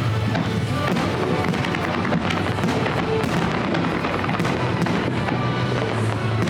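Fireworks display: shells bursting and crackling, with music playing underneath.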